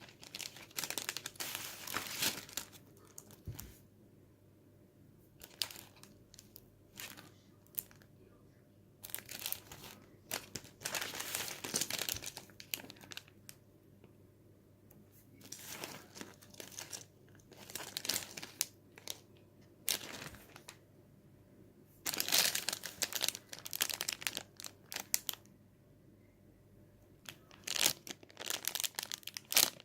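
Plastic packaging crinkling as it is handled, in bursts of a few seconds with quiet pauses between.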